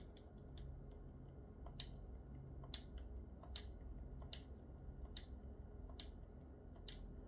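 Faint, sharp clicks, about one a second, with fainter clicks between, as digits are entered on the PlayStation 4's on-screen number pad. A low steady hum runs underneath.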